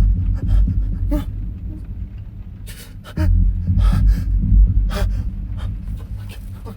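A person breathing heavily and panting, roughly a breath a second, over a deep rumbling drone. The rumble comes in suddenly about three seconds in and slowly fades.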